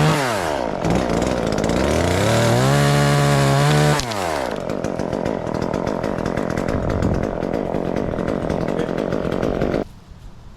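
Chainsaw making the first cut into a black walnut limb. It runs at high revs, its pitch dipping and rising again, then settles into a rougher, steady sound for about six seconds, and it cuts off abruptly near the end.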